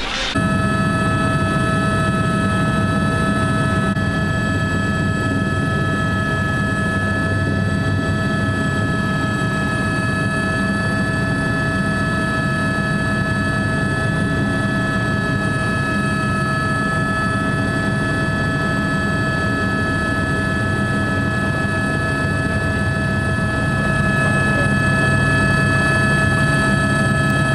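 A steady machine drone: a constant high whine of several held tones over a low rumble. The rumble gets a little louder about 24 seconds in.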